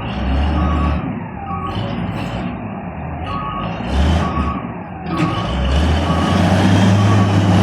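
Heavy vehicle's engine running with a low rumble that swells at times, while its reversing alarm beeps about once a second.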